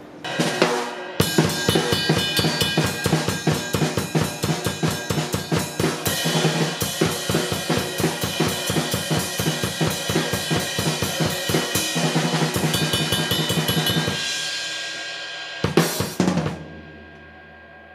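Drum kit played: a steady groove of bass drum, snare and cymbal hits starts about a second in. Near the end the cymbals are left to wash out, then one last loud hit rings away.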